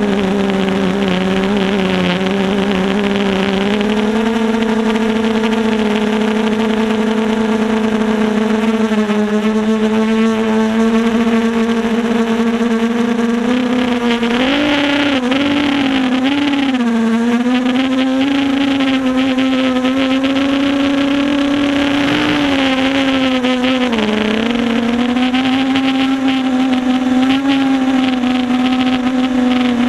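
Brushless motors of a 250-size FPV quadcopter droning at a steady pitch. The pitch wavers several times around the middle and dips once more later.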